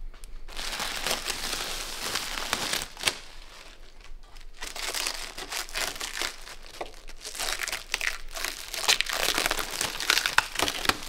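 Clear protective plastic film being peeled off new aftermarket headlight lenses, crinkling and crackling throughout with many small sharp snaps.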